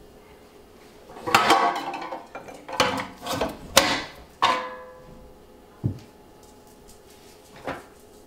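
Stainless steel parts of a LEM #8 meat grinder clanking as the grinder head and the hopper tray are fitted back on. There are several metallic clanks with a short ring, bunched between about one and five seconds in, then a low thump and a lighter knock. The grinder motor is not running.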